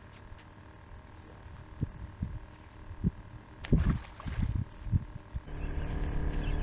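A released fish splashing into shallow water about three and a half seconds in, the loudest sound here, among a few soft low thumps of wind on the microphone. A steadier wind rush takes over near the end.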